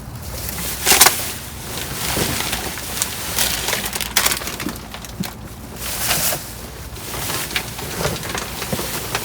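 Plastic food packaging and trash bags crinkling and rustling as they are rummaged through by hand, in irregular crackles with the loudest about a second in.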